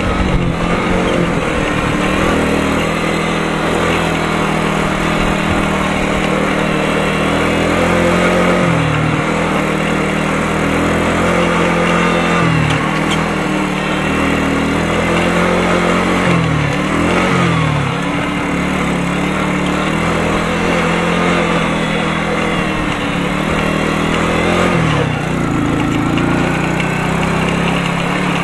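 Small moped-type motorcycle engine running as the bike rides along, heard from the rider's seat. Its steady note dips and picks back up several times.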